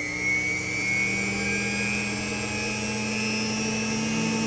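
A 1930s Hamilton Beach Model 27 milkshake mixer's 70-watt single-speed motor with sleeve bearings running steadily, with a steady hum and a high whine. The pitch creeps up over the first second or so as the motor reaches speed, then holds. It runs smoothly, in good working order.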